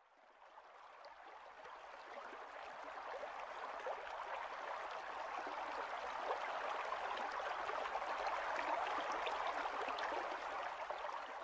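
Water splashing and trickling, a steady rush dotted with many small drop-like ticks, fading in over the first few seconds.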